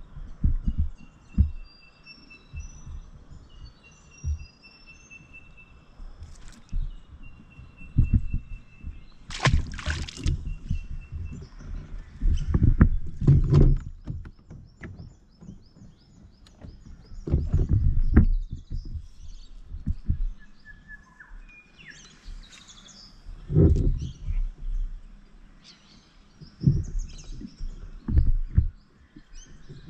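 Birds calling around a kayak on the water: repeated thin whistled notes and high chirps, over irregular low thumps and rumbles from the kayak and its gear. A brief loud rush sounds about ten seconds in.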